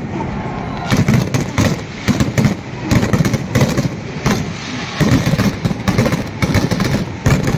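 Fireworks going off in quick succession: a string of bangs and crackles, several a second, over a steady low din.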